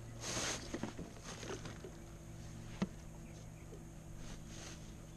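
Quiet handling noises as a fish is measured against a wooden yardstick on a plastic kayak deck: a short rustle near the start, one sharp knock just under three seconds in, and a few soft scuffs near the end, over a faint steady hum.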